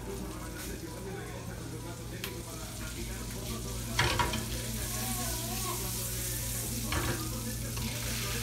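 Melted butter sizzling in a nonstick frying pan over a gas burner, with two sharp knocks against the pan, about halfway through and again near the end. The sizzle grows stronger in the second half as raw shrimp are tipped into the hot butter.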